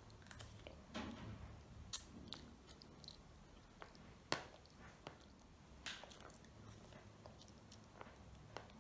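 A child chewing and slurping ramen noodles: faint wet mouth sounds with a few sharp clicks, the loudest about two seconds and four seconds in.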